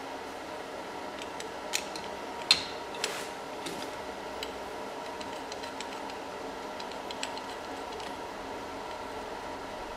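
Light clicks and taps of small metal tools being handled, a depth micrometer being set against a boring bar and its tool holder, scattered through the first few seconds with the sharpest tap about two and a half seconds in. A steady hum runs underneath.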